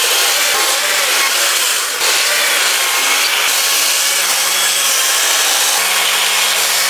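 Small chainsaw running steadily and cutting into a little log while it is carved into a bird, with a brief dip in the cut about two seconds in.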